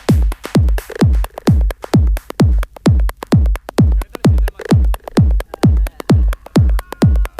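Electronic dance music in a techno style, driven by a steady four-on-the-floor kick drum at about two beats a second, with crisp hi-hat ticks between the kicks.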